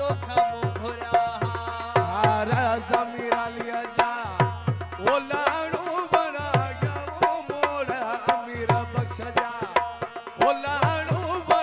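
Live Sindhi folk music: a steady drum beat with deep thumps under a wavering melody line.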